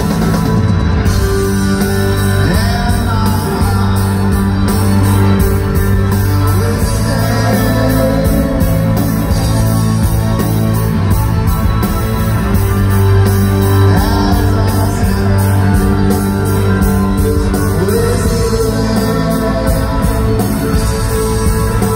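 A rock band playing live, recorded from the audience: electric guitars, drums and keyboards with a lead singer, loud and without a break.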